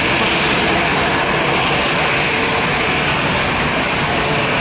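Airbus A320 airliner landing, its jet engines making a steady, loud rush of noise.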